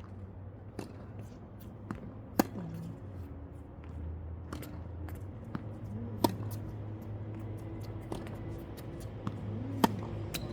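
Tennis ball struck by a racket, a sharp pop about every three and a half seconds during a rally drill, with fainter clicks and knocks in between, over a low steady hum.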